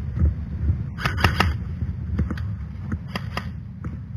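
Airsoft gunfire: sharp cracks in quick clusters of three or four, about a second in and again about three seconds in, over a low rumble of wind and handling noise on the helmet camera.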